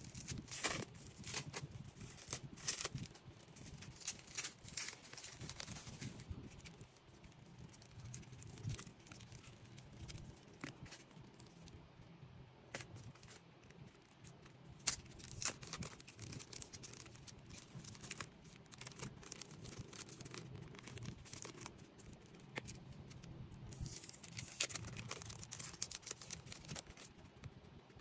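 Photocards in clear plastic sleeves and a foil card pack being handled and opened: plastic crinkling, with a run of sharp crackles and taps as cards are picked up and set down, busiest in the first few seconds and again near the end.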